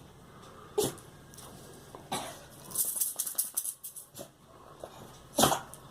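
A girl coughing in several separate short, harsh coughs, with a run of smaller breathy ones about three seconds in.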